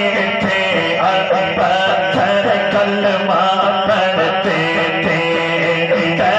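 A man singing an Urdu naat, a devotional song in praise of the Prophet, into a microphone, unaccompanied. He holds long notes and bends them with melodic ornaments.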